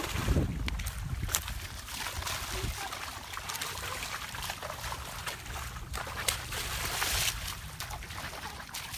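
Water splashing and sloshing as feet wade through a shallow muddy pond and hands grope in it, with many small irregular splashes.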